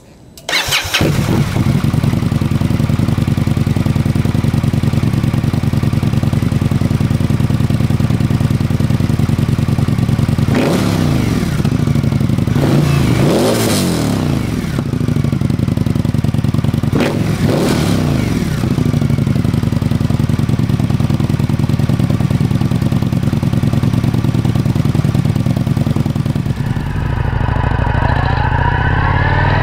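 2017 Victory Octane's liquid-cooled V-twin firing up through an aftermarket exhaust and idling, blipped three times with the revs rising and falling. Near the end the bike pulls away, the engine note climbing as it accelerates.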